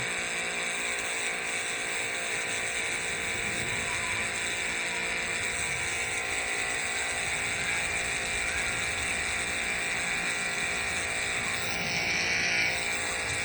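A 4,300 PSI pressure washer running steadily: a motor hum under the hiss of the high-pressure water jet spraying onto concrete. The spray grows louder for a moment near the end.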